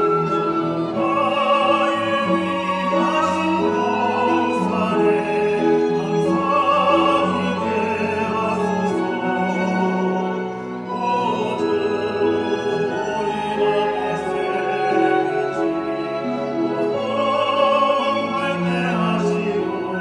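Small mixed vocal ensemble of men and women singing a sacred song in sustained, vibrato-rich tones, accompanied by violins and cello.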